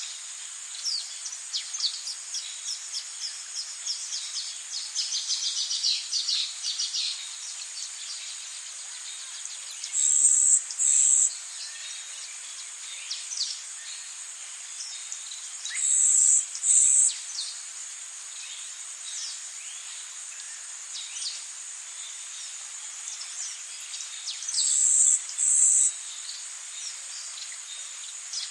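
Tropical rainforest ambience: a steady high-pitched insect drone, with a flurry of quick bird chirps through the first several seconds. A louder two-part call or buzz repeats three times, several seconds apart.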